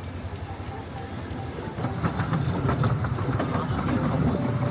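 Wulai narrow-gauge tourist trolley train running on its track: a low rumble with wheels rattling over the rails, getting louder about two seconds in, and a thin high squeal of the wheels on the rail.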